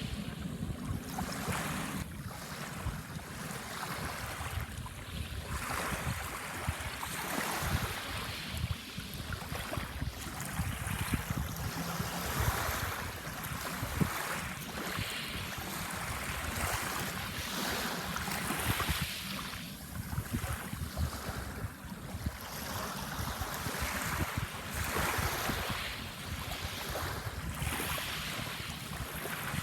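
Waves washing onto a sandbar shore, swelling and receding every few seconds, with wind rumbling on the microphone.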